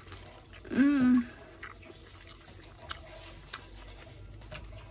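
Birria tacos frying in a pan, a faint steady sizzle with small crackles. About a second in, a person makes one short voiced sound, rising then held briefly.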